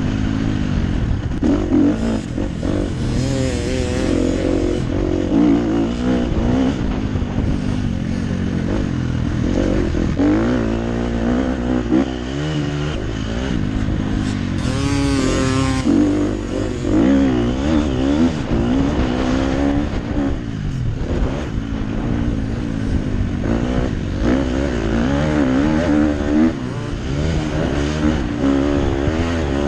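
KTM SX-F 250 single-cylinder four-stroke motocross engine, heard close up from the rider's helmet, revving up and dropping back continually through the gears and corners. About halfway through the revs climb sharply and fall away again.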